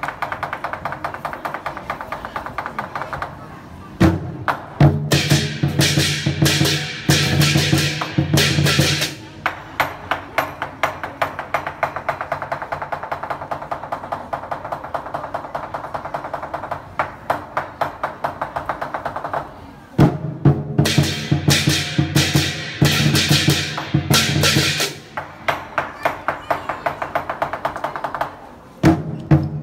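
Lion-dance percussion: a large drum beaten in a fast, steady rhythm with clashing cymbals. It swells twice into loud passages of heavy drumming and crashing cymbals, about four seconds in and again around twenty seconds, and builds again near the end.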